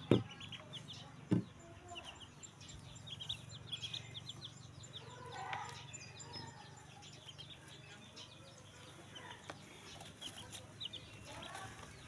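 Newly hatched chicks peeping: many short, high chirps in quick runs. There are two dull thumps within the first second and a half, over a low steady hum.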